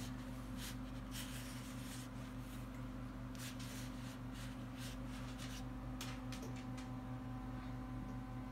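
Soft, faint rubbing and scraping of a paperboard sleeve sliding along a card box, in scattered strokes over a steady low hum.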